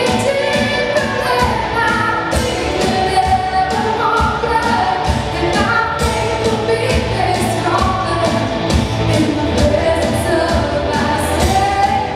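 Live worship band playing: electric guitars, bass and drum kit, with singers holding long notes over a steady beat.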